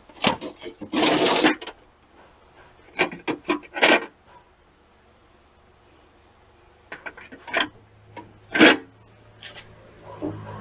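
Metal hand tools clinking and clattering as they are rummaged through, in several short bursts with quiet pauses between.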